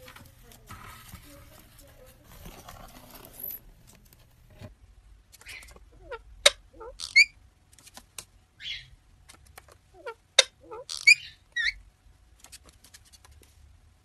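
Faint rustling, then, after about four and a half seconds, a run of sharp squeaky chirps and clicks from Indian ringneck parakeets, loudest around the middle and again past ten seconds.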